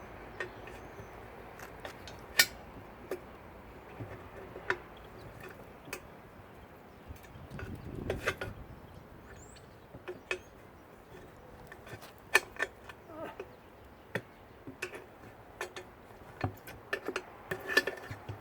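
Scattered metal clinks and knocks, with a short scraping stretch about eight seconds in, as a cut tire is worked off an aluminum wheel rim.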